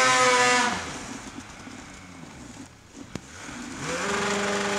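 Snowmobile engine revving hard with the track churning deep snow, then dropping off to a low idle. A sharp click comes about three seconds in, and then the engine revs up again and holds a steady high pitch.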